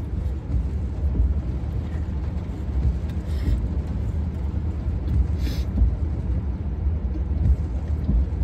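Steady low rumble of a vehicle engine idling, heard from inside the cab, with two short rustling noises about three and a half and five and a half seconds in.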